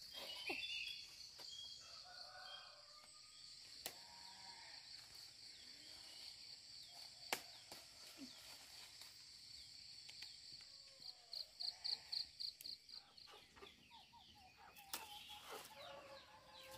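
Faint rural backyard ambience: chickens clucking under a steady high drone of insects, with a few sharp snaps and rustles as papaya leaves are picked by hand.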